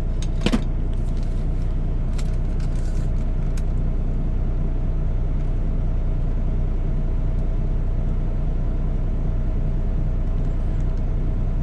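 Steady low drone of an idling car engine, unchanging throughout, with two sharp clicks in the first second.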